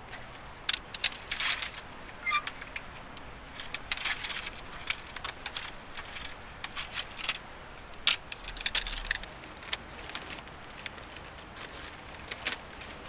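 Camping gear handled and packed by hand: irregular light clinks, rattles and rustling of nylon bags and cords, with one sharper click about eight seconds in.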